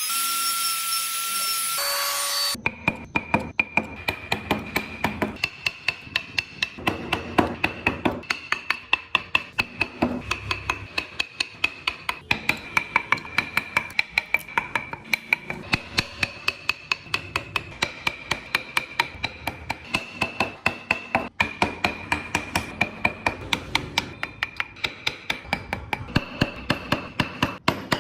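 Wood carving: after a steady rasping noise for about two and a half seconds, a mallet taps a carving chisel into wood in a rapid, even rhythm of about four strikes a second.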